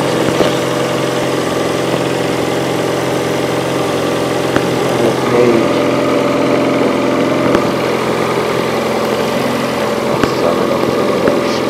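Car engine idling steadily, with a few light clicks over it.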